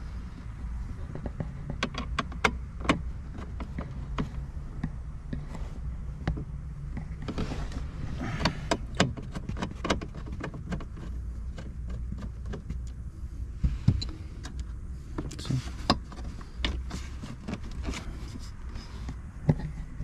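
Hand-tool clicks and small metal knocks as bolts are worked loose on a car seat's back frame, scattered irregularly over a low steady hum.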